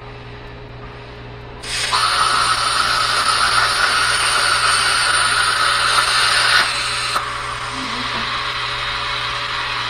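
Handheld plasma cutter torch on an ArcDroid CNC robot cutting a small hole through metal tubing. The arc starts with a sudden loud hiss about two seconds in and cuts off after about five seconds. Air keeps hissing more softly through the torch until near the end.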